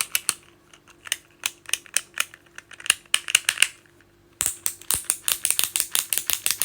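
Small plastic fidgets on a fidget stick being clicked and flicked: scattered sharp clicks at first, then from about four seconds in a rapid ratcheting run of about ten clicks a second.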